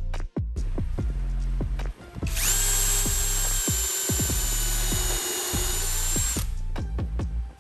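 An electric power tool's motor starts about two seconds in and runs at a steady high whine for about four seconds, then stops. Background music with a steady beat plays throughout.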